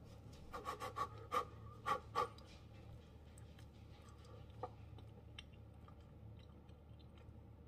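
Faint mouth and breath sounds of a person eating a hot cinnamon roll: a quick run of small clicks and breaths in the first couple of seconds, then only scattered faint ticks.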